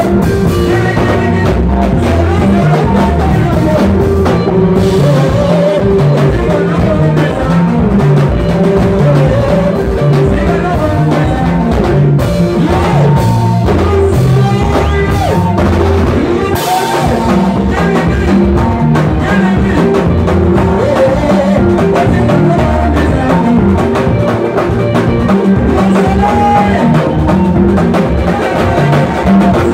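Live Congolese rumba band playing a sebene, the fast dance section: electric guitar lines over a driving drum kit, loud and continuous.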